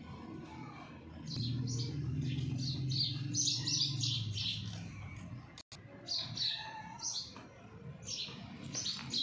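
Small birds chirping in many quick, short, high notes over a low steady hum. The sound cuts out for an instant a little past halfway.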